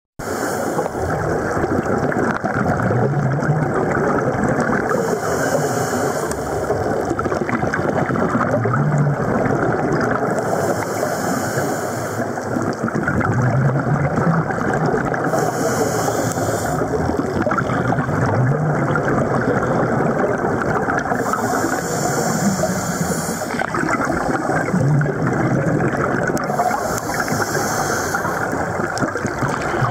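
Scuba diver breathing through a regulator underwater: a hiss of inhalation about every five to six seconds, alternating with low rumbling exhale bubbles, over a steady underwater crackle and hiss.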